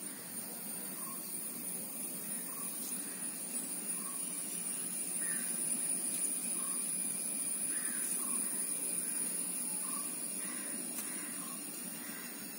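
Outdoor ambience: a steady high-pitched insect drone, with short animal calls repeating about once a second.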